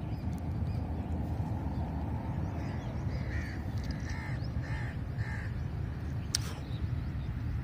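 A crow cawing four times, evenly spaced, over the steady low rumble of a GEU-40 diesel-electric locomotive approaching in the distance. A single sharp click near the end.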